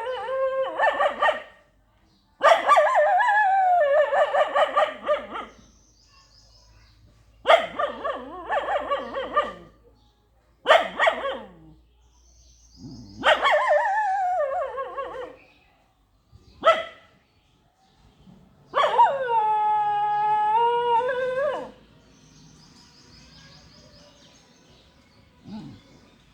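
A dog crying: a series of about eight whining, yelping cries of varying length with wavering pitch, broken by pauses, including one long, fairly steady cry of about three seconds past the middle.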